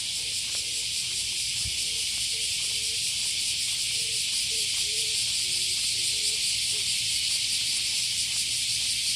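Cicadas shrilling in a steady, dense chorus: a continuous high buzz with a fine rapid pulse.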